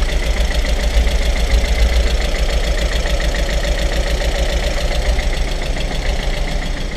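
Freshly rebuilt Audi TT engine idling roughly after its first start, with a fast, even ticking clatter that sounds like a diesel. The owner puts the clatter down to the hydraulic lifters, and the heavy shaking and knock to two cylinders not firing, later cured with new spark plugs.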